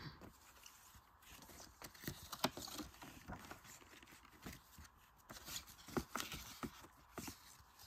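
Faint scattered clicks and rustles of paper inserts and plastic VHS cases being handled, with a few slightly louder taps about two and a half and six seconds in.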